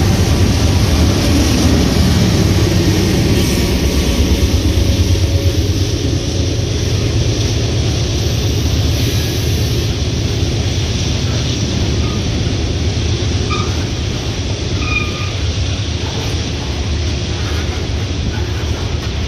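Loaded grain train passing close by: a GE diesel locomotive runs past in the first few seconds, then loaded covered hopper cars roll by with steady wheel clatter on the rails.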